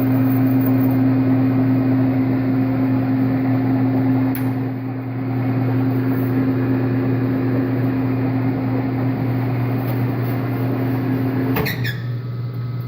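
Metal lathe running steadily while boring out a bushing, a constant hum. About a second before the end there is a click and the hum changes and drops a little.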